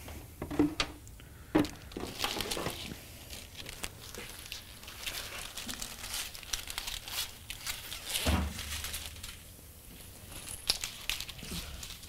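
Rustling and crinkling with scattered light clicks as a wiring harness is handled, with a dull knock about eight seconds in.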